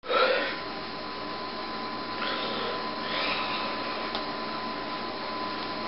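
Steady background hiss with a faint constant high tone through it, and a short louder sound at the very start.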